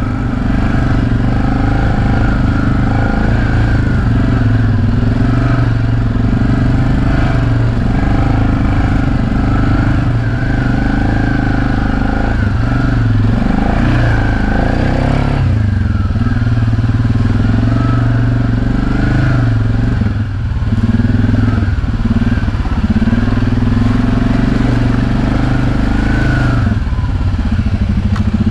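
ATV engine running as the quad is ridden, its pitch rising and falling with the throttle; it eases off briefly about twenty seconds in.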